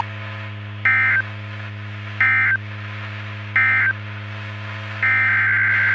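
Emergency Alert System SAME data tones: three short two-tone digital bursts about 1.4 s apart, the end-of-message code closing the severe thunderstorm warning. About 5 s in, a longer burst begins, the header of the next alert. A steady low hum runs underneath.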